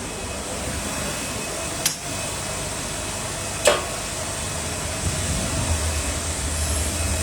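Steady machinery hum with two sharp clicks, about two and three and a half seconds in; a deeper low hum comes up about five seconds in.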